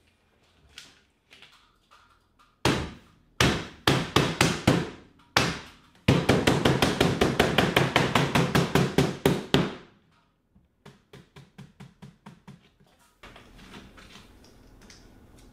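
Mallet tapping a vinyl Screen Tight cover strip down onto its base track along a wooden screen frame. A few separate blows come first, then a fast run of about five strikes a second for some four seconds, then fainter light taps.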